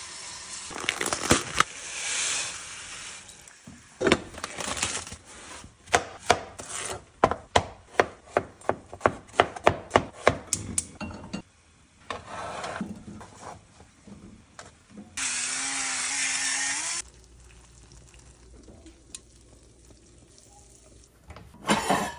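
Chicken sizzling in oil in a frying pan, then a chef's knife chopping zucchini on a cutting board in a quick run of chops, about two or three a second. Later a short stretch of steady sizzling hiss that starts and stops abruptly.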